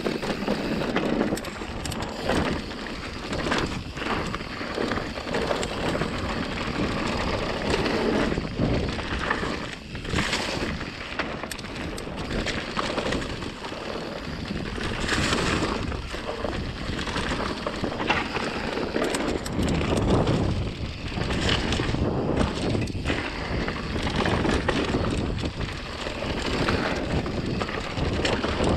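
Mountain bike descending a fast dirt trail: wind buffeting the camera microphone, tyres rolling over dirt and dry leaves, and frequent knocks and rattles from the bike over bumps.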